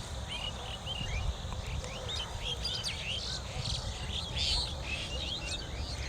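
Small birds chirping in quick, short, overlapping calls, with a low rumble underneath.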